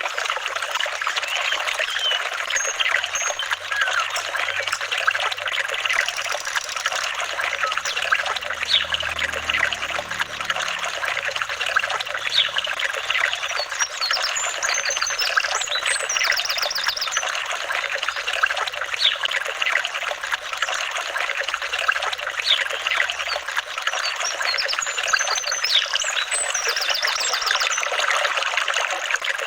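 Running water trickling and gurgling steadily, a constant babble of small splashes.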